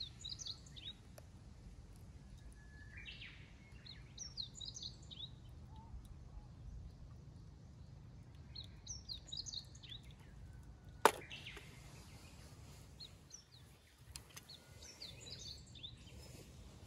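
A songbird singing short chirping phrases, four times several seconds apart, over a low, steady outdoor rumble. A single sharp click about eleven seconds in is the loudest sound.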